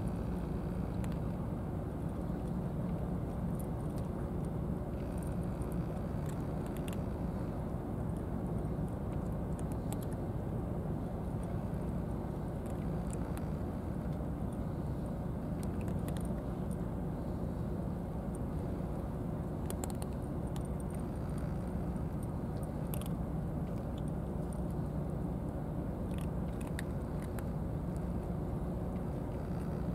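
Two cats crunching dry kibble from a ceramic bowl: scattered short, sharp crunches and clicks over a steady low rumble that is the loudest thing throughout.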